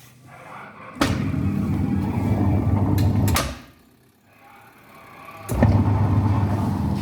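Washing machine motor and drum running in bursts with a steady low hum: they start abruptly with a click about a second in, stop after about two and a half seconds, and start again near the end.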